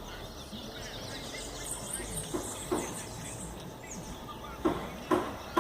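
Small birds chirping over the steady rush of a river's flowing water, with a few sharp knocks in the second half.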